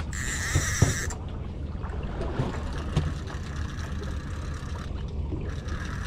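Fishing reel drag buzzing as a fish strikes and pulls line, loudest for about the first second, then stopping abruptly and continuing more faintly in runs, over the steady low rumble of the boat's idling engine.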